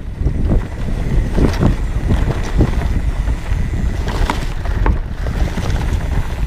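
Wind buffeting the microphone over the rumble of a 29-plus mountain bike rolling along a dirt trail, with scattered clicks and rattles from the bike.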